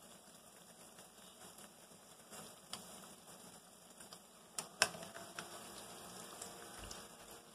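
Battered cauliflower florets deep-frying in hot oil: a steady crackling sizzle. There are a few sharp clicks as the pieces are turned with a metal utensil, the loudest a little past halfway.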